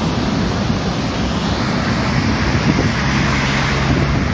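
Steady roar of a river in flood after heavy rain, muddy water rushing under the bridge, with wind buffeting the microphone. A low vehicle engine hum joins about three seconds in.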